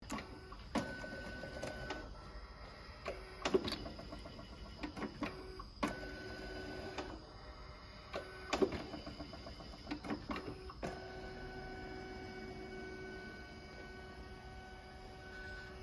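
Small candy depositing machine running through its cycle: a motor whine comes and goes in short spells as the mould tray indexes, and the mechanism clicks and clacks each time the depositor pistons work.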